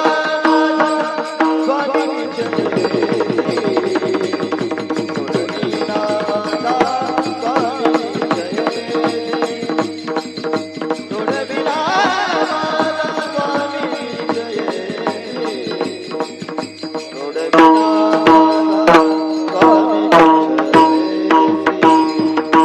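Devotional kirtan music: a melody held over a steady drone, with hand-drum strokes keeping a dense rhythm. The drumming grows louder and sharper about three-quarters of the way through.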